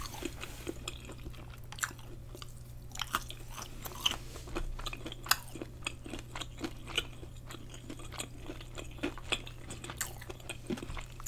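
A person chewing a mouthful of battered deep-fried lobster tail: irregular soft crunches and small wet clicks, over a steady low hum.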